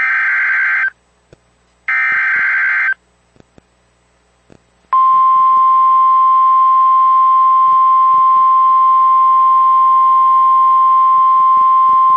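NOAA Weather Radio Emergency Alert System broadcast: two short bursts of SAME digital header data, each about a second long and a second apart. About five seconds in, the steady single 1050 Hz warning alarm tone starts and holds, signalling a tornado warning.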